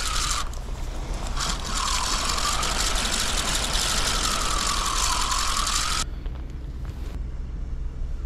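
Large fixed-spool beachcasting reel being wound in, a steady whirring hiss whose pitch wavers slowly up and down. It breaks off briefly about half a second in, then stops suddenly about six seconds in, leaving a quieter background.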